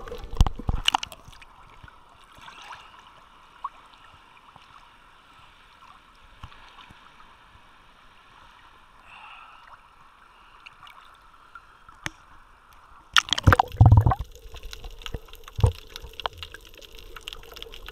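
Water sloshing and gurgling around an action camera as it dips in and out of the sea while snorkelling, with loud splashing bursts just after the start and again about three-quarters of the way through, and quieter muffled water noise between.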